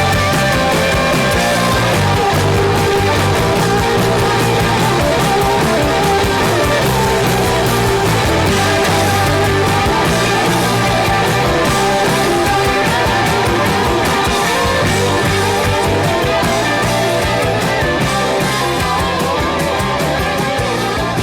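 Loud rock music with electric guitar over a steady drum and bass beat.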